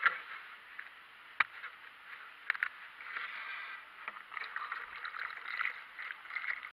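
Old engine coolant pouring out of a removed plastic coolant reservoir tank into a cut-down plastic bottle, splashing and gurgling as the bottle foams. There are a few sharp plastic clicks and knocks from handling the tank, the loudest about a second and a half and two and a half seconds in.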